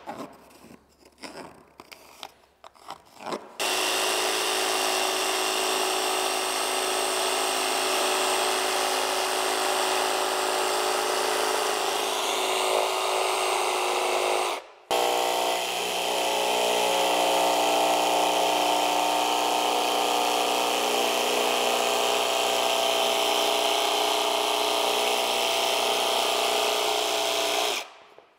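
A few light pencil scratches marking a luxury vinyl plank, then a Milwaukee cordless jigsaw cutting the plank. The saw runs steadily with a whine, stops for a moment about halfway and starts again, and cuts off sharply near the end.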